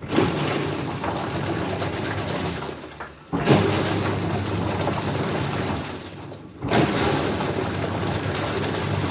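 Washing machine running a wash cycle: the drum turns with a motor hum, water sloshing and a grinding noise, stopping briefly twice and starting again each time after about three seconds.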